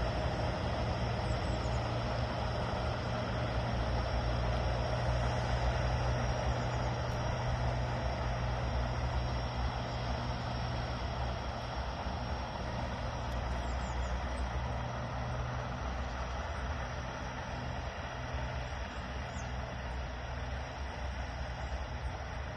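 Class 774 and 724 diesel locomotives of a loaded coal freight train running, a steady low engine drone that slowly fades as the train pulls away.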